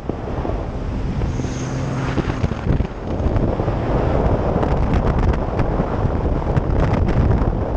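Wind buffeting the microphone of a moving Sea-Doo personal watercraft, over the steady rush of its engine and the hull running across the water. A faint engine tone shows through from about one to three seconds in.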